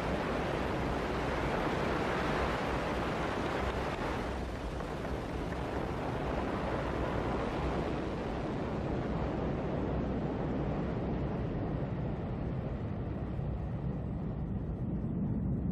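Ariane 5 rocket lifting off: the steady rushing noise of its main engine and two solid boosters, whose higher hiss fades from about halfway through as the rocket climbs away, leaving a low rumble.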